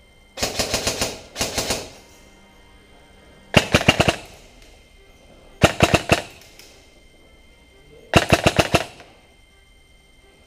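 Airsoft rifle firing five short full-auto bursts of rapid shots, each under a second long; the first two come close together.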